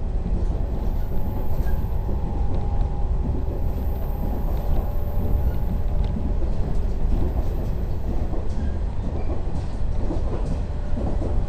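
Running sound of a JR 115 series electric train, heard inside the car: a steady low rumble of the train travelling along the track, with a few faint clicks near the end.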